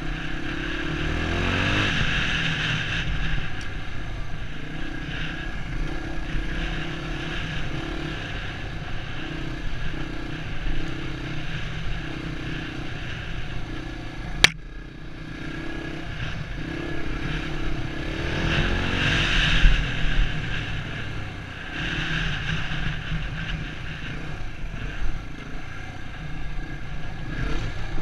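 Dirt bike engine running as the bike rides a dirt trail. The revs rise and fall with the throttle, climbing noticeably near the start and again about two-thirds of the way through. There is one sharp click about halfway through.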